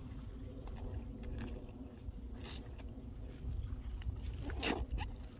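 Scattered scraping and crunching noises over a steady low rumble, with the loudest, longest scrape near the end.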